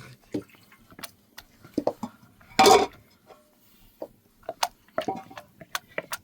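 Pots, dishes and utensils clinking and knocking in short, scattered strikes, with one louder clatter about two and a half seconds in.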